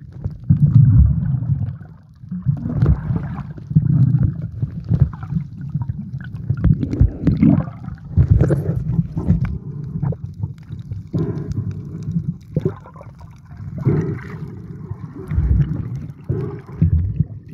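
Muffled water noise heard through a submerged camera's waterproof case: water sloshes and rushes against the case in irregular low surges every second or two, with a few light ticks.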